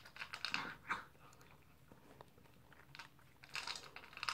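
Dog eating from a bowl, chewing its food: quick irregular clicks for about the first second and again near the end, with a quieter stretch between.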